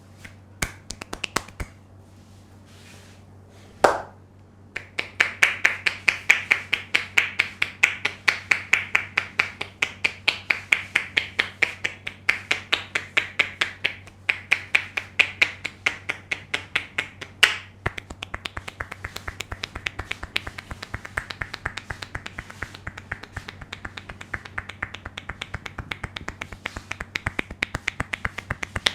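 A barber's hands snapping and cracking in the hair and on the scalp during an Indian head massage: a fast, steady run of sharp clicks, several a second, starting about five seconds in, with a single louder crack just before and another midway.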